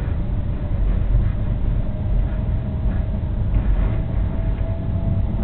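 A tram running along grass-covered track, heard from inside the car: a steady low rumble of wheels and running gear. A faint steady whine joins about two seconds in and rises slightly in pitch.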